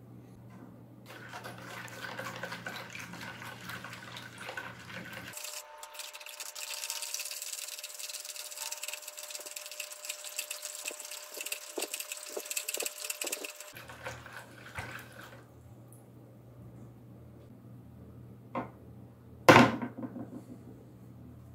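Water in a plastic bowl being stirred with a plastic stick to mix in a white powder, swishing with a quick run of small clicks. Near the end comes a single sharp knock, the loudest sound, as a steel drill bit goes into the bowl.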